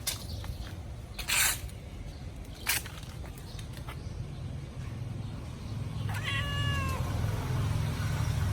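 A domestic cat meowing once, a single call just under a second long about six seconds in, its pitch dipping at the end. Before it come a few short noisy sounds, the loudest about a second and a half in.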